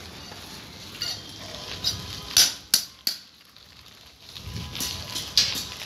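Bicycle rattling over a rough dirt street: a run of irregular sharp clinks and clanks, loudest a little over two seconds in, with a low rumble later on.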